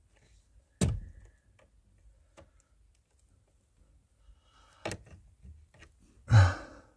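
Screwdriver and pliers clicking and knocking against the plastic hood-release handle and trim under a car's dashboard. A sharp knock comes about a second in, then a few faint ticks, another click near five seconds, and a short rustle near the end.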